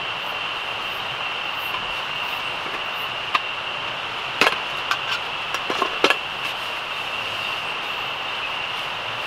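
A steady high-pitched chorus of night insects, with a run of sharp metal clicks and clinks a few seconds in as a portable camping gas stove and its gas canister are handled.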